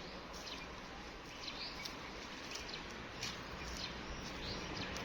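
Small birds chirping with short, scattered calls every second or so, over a steady background hiss of outdoor ambience.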